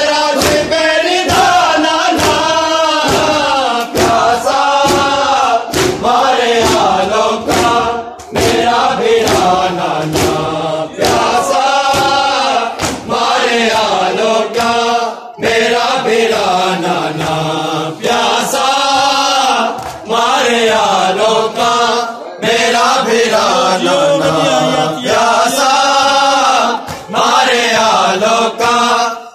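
A group of men chanting a noha (Shia lament) in unison, with sharp slaps of hands on chests (matam) keeping a steady beat under the voices.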